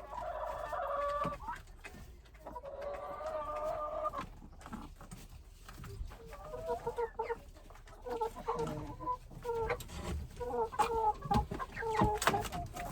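Chickens calling: two drawn-out calls in the first four seconds, then rapid short clucks from about six seconds in, with scattered clicks, as the birds react to fresh grass.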